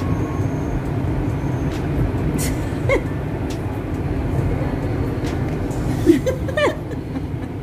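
Steady low rumble of a Mumbai Metro train running, heard from inside the carriage. Short bits of voice come about three seconds and six seconds in.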